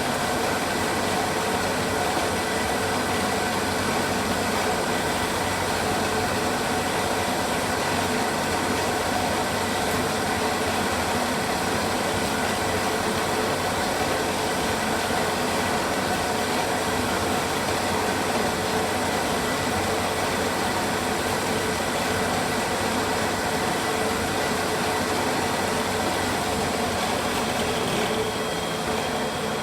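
Semi-automatic frame-saw sharpening machine running steadily, its motor and drive giving a constant whine over mechanical noise. The sound shifts slightly and drops a little near the end.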